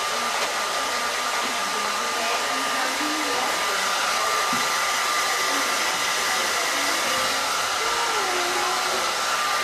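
Handheld hair dryer running steadily as it blows a toddler's hair dry: an even rushing hiss with a thin steady whine.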